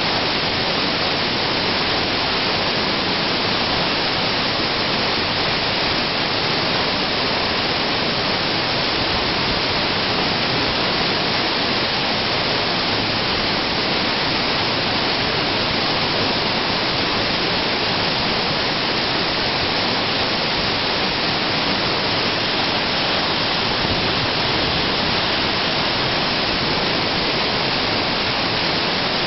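Waterfall pouring down a narrow rock gorge: a loud, steady rush of falling water that does not change.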